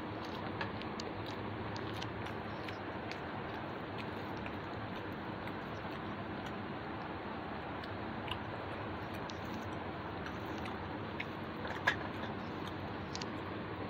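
A person eating rice and curry by hand off a banana leaf: chewing and mouth sounds, with small clicks of fingers working the rice on the leaf, over a steady background hiss. A sharper click near the end.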